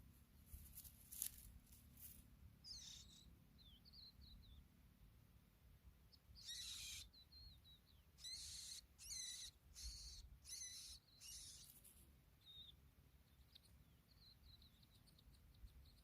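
Skylarks calling: quiet runs of short high chirps and trills, with a cluster of louder, harsher chirps in the middle, over a faint low rumble.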